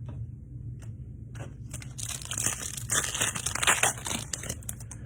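Crinkling, rustling noise of trading cards and their packaging being handled, loudest from about two to four and a half seconds in, with a few light clicks before it.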